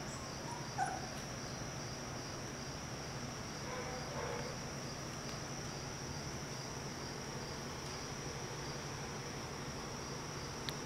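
Insects chirring in a steady, high-pitched, evenly pulsing drone, over a low steady hum. A short faint squeak comes about a second in.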